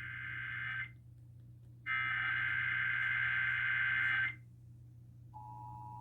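Emergency Alert System SAME header data bursts: the end of one harsh, buzzing digital burst, then after about a second another burst lasting about two and a half seconds. About a second later the steady two-tone EAS attention signal begins, marking the start of a Required Monthly Test alert. A low steady hum sits underneath.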